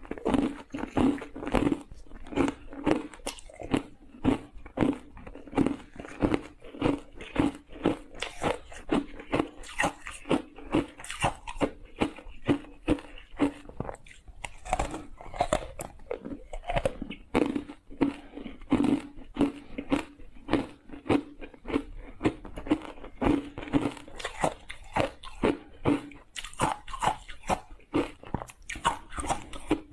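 Crunchy ice coated in matcha tea powder being bitten and chewed close to the mouth: a steady run of sharp crunches, about two a second.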